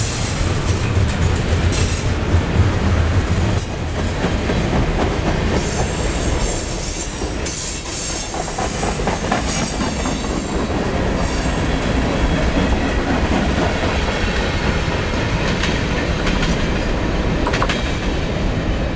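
Freight train cars rolling past close by, double-stack container well cars and refrigerated boxcars: a steady, loud rumble and rattle of steel wheels on the rails. High wheel squeal comes and goes over it, mostly in the first half.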